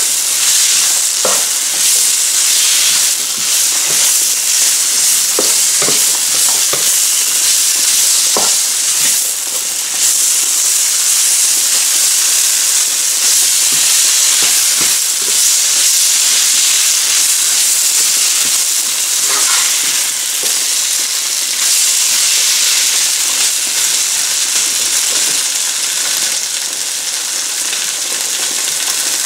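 Chopped onion and green bell pepper sizzling in hot oil in a nonstick pan while being stirred with a wooden spatula: a steady, loud frying hiss, with a few light clicks scattered through the first several seconds.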